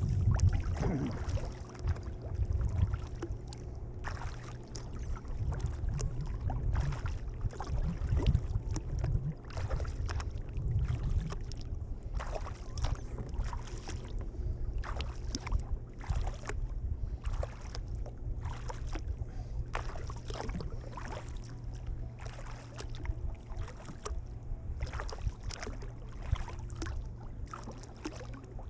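Double-bladed kayak paddle dipping into river water, alternating sides: a run of short splashes about once a second over a steady low rumble.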